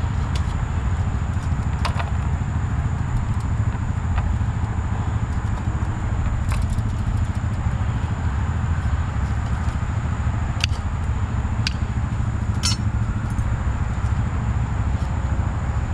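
A steady low rumble, with a handful of short, sharp metallic clicks and clinks scattered through it, about five or six in all.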